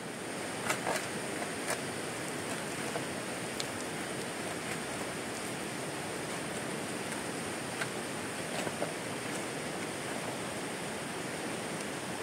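Steady rain falling, a continuous hiss with a few scattered sharp ticks.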